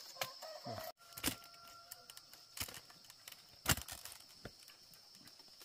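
A few short sharp knocks and clicks, the loudest a little under four seconds in, over a steady high insect drone.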